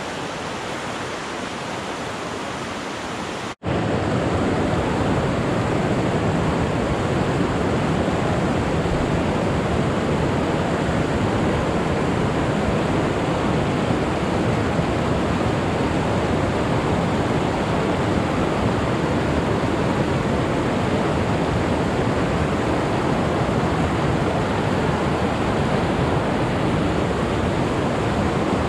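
Mountain creek rushing over rocks, a steady, even rush of fast water. It cuts out for an instant about three and a half seconds in and comes back louder.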